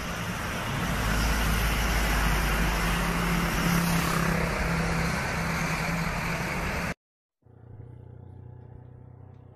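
A heavy truck's engine and tyres going past close by, loud with a deep rumble and a rushing hiss; it cuts off abruptly about seven seconds in and is followed by a much quieter steady engine hum.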